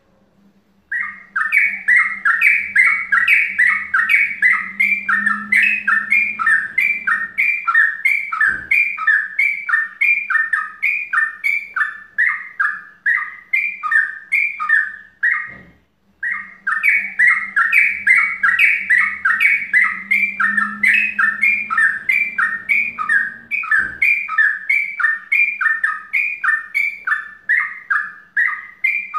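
Yellow-vented bulbul (trucukan) singing its 'mbandul ropel' song: a fast, unbroken run of rapid repeated chirping notes. The run breaks off briefly about 16 seconds in, then starts again.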